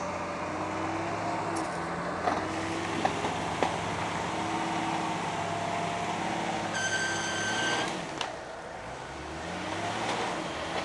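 Nissan Patrol GR's engine running steadily under load as the 4x4 works through deep mud. A short high whistle-like tone sounds about seven seconds in.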